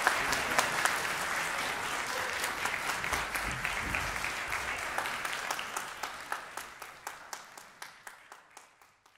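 Audience applauding, a dense patter of many hands that fades out over the last few seconds, leaving a few separate claps.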